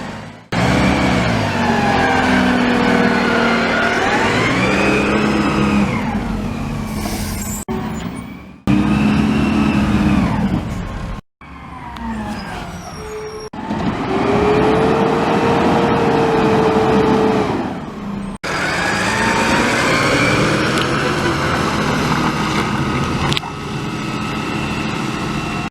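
Garbage truck squealing in a run of short clips joined together: wavering, pitched squeals that slide up and down, with one long steady squeal in the middle, over the running truck.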